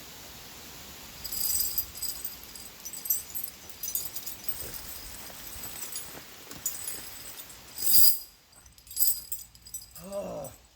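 Steel tractor tire chains (Trygg studded ice chains) clinking and jangling as they are handled and untangled, in repeated bursts, the loudest about eight seconds in.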